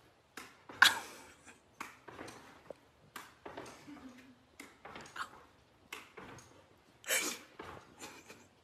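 A dog leaping and twisting about, making a string of short, sharp, irregular noises, the loudest about a second in and another near the end.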